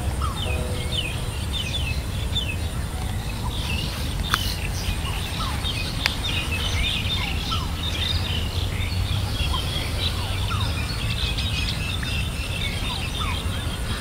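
Forest birds chirping: many short, quick downward-sweeping chirps overlapping throughout, over a steady low rumble and a thin steady high tone.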